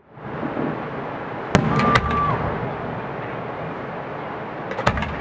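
Aerial fireworks bursting: two sharp bangs about a second and a half in, then a few smaller crackling pops leading into another bang near the end, over a steady background of noise.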